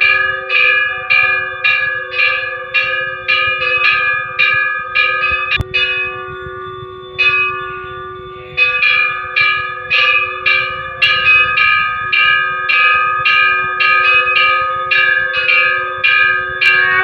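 Brass temple bell rung steadily during the puja, about two to three strikes a second, each strike ringing on into the next. The ringing falters for a couple of seconds about six seconds in, then picks up again.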